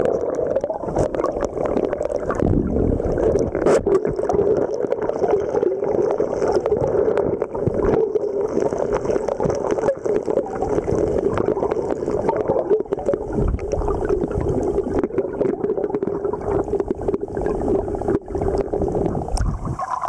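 Underwater sound of gravel and stones being dug by hand in a creek bed: a steady muffled rush with frequent sharp clicks and knocks of stones.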